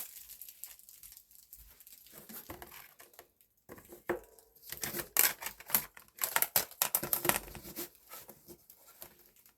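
Protective plastic film being peeled off an acrylic terrarium panel and handled, crackling and rustling: faint at first, with a run of loud, sharp crackles from about four seconds in until about eight seconds.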